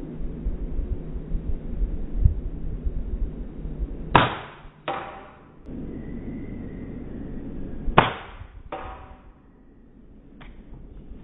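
Two air rifle shots about four seconds apart, each followed under a second later by a second sharp crack with a short ring: the pellet striking the target. Low rumbling and knocking come before the first shot.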